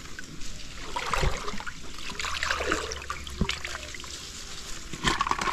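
Water trickling and sloshing around a wet fishing net as people wading in a fish pond haul it out, with a few small knocks and rustles.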